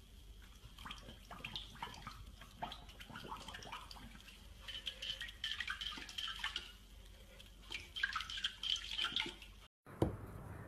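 A puppy pawing and scraping at a water-filled dog bowl: a string of small splashes, drips and clicks of claws on the bowl, busiest in the second half.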